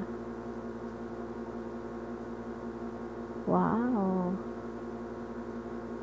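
Steady hum of several held tones that does not change. A woman exclaims 'Wow!' about three and a half seconds in.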